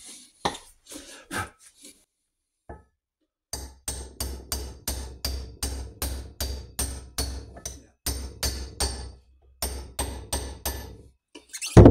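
Hammer tapping a tubular drift to drive a heated inner main-bearing race onto a Norton Commando 850 crankshaft, metal ringing with each blow. A few separate taps come first, then a pause, then an even run of about three taps a second, with one heavier knock near the end.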